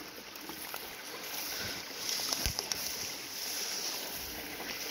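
Steady rush of a shallow river running over rocks, with a few light knocks about halfway through.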